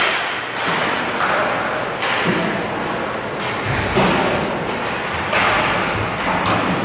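Close-range ice hockey play: skates scraping on the ice, with several sharp knocks and thuds of sticks, puck and players against the boards and glass.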